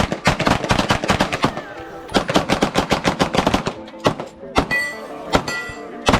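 Gunfire from several guns: rapid, irregular shots overlapping in dense runs, thinning to scattered single shots in the last couple of seconds.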